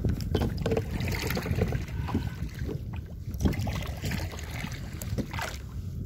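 Wind buffeting the microphone and water slapping against a plastic kayak's hull, with many short knocks and clatters of gear being handled in the boat.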